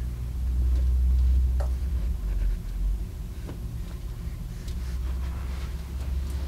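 A steady low rumble, with a few faint clicks and rustles as fabric is folded and fastened with plastic sewing clips on an ironing board.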